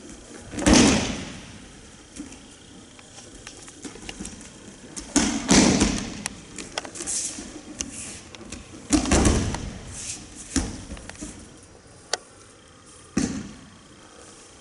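Aikido ukes being thrown and taking breakfalls on tatami mats: four heavy thuds about four seconds apart, each with a short echo, with lighter taps in between.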